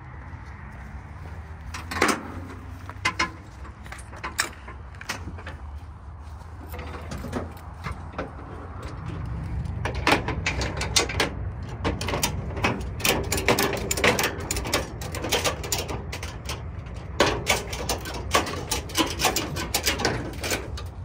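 Ratchet tie-down straps being hooked to the wheels and cranked tight on an aluminium car trailer: clanks of metal hooks, then runs of quick ratchet clicks, over a low steady rumble that grows louder about a third of the way in.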